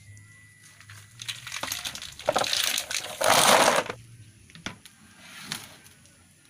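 Small freshwater snail shells clattering as they are poured from a plastic container into a plastic basin: a rush of rattling that is loudest a little past the middle, followed by a few lone clicks.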